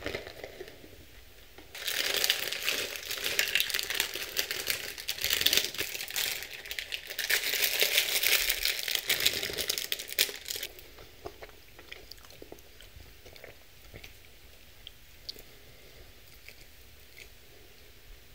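Crinkly plastic packaging handled and shaken out over a salad, a dense crackling with some tearing for about nine seconds. It then stops, and quieter scattered taps and rustles follow as toppings are set on the salad by hand.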